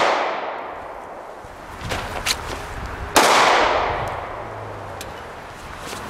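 A single pistol shot about three seconds in, followed by a long fading echo. The tail of a shot fired just before fades out at the start, and a couple of light clicks come about two seconds in.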